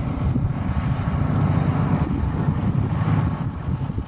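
Jet aircraft engines running at an airfield, a steady rumble with a rushing mid-range that swells about three seconds in, mixed with wind buffeting the microphone.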